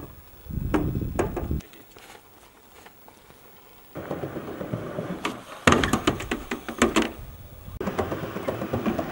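Skateboard rolling on the metal roof of an old train car, with several sharp clacks and knocks of the board in the second half.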